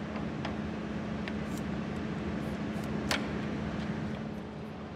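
Mecof 40C radial drilling machine running with a steady hum, while a tapping attachment is fitted into its quick-change tool holder: a few light metallic clicks, the sharpest about three seconds in.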